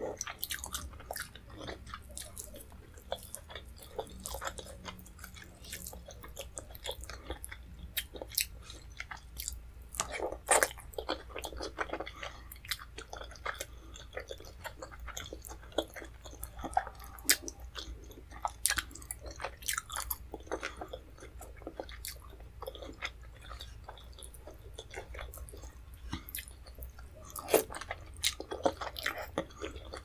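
A person chewing Nigerian vegetable soup with fufu, eaten by hand: wet chewing, lip smacks and sharp mouth clicks, irregular and frequent, coming thicker at several points.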